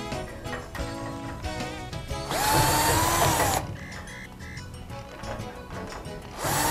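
Cordless drill/driver backing screws out of a steel shipping bracket. The motor spins up quickly and holds steady for over a second, stops, then starts again near the end, over background music.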